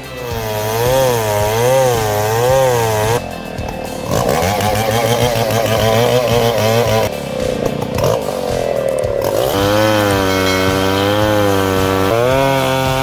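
Chainsaw running at high revs while cutting into a tree, its pitch swinging up and down over and over as the chain bites and frees. The engine note dips briefly about three seconds in and again around the middle.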